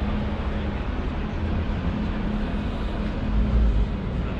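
Steady hubbub of a large, busy exhibition hall, with a faint hum and a brief low rumble about three and a half seconds in.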